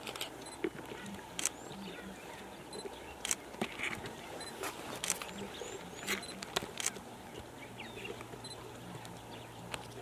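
Male lions feeding on a buffalo carcass: tearing and chewing of meat and hide, with irregular sharp cracks and clicks.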